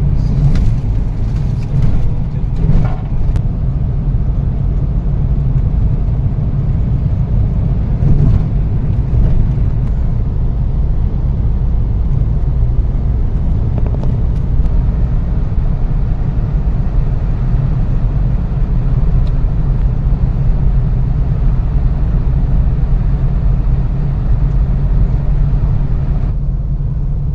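Steady low rumble of a road vehicle running, with a few faint clicks near the start.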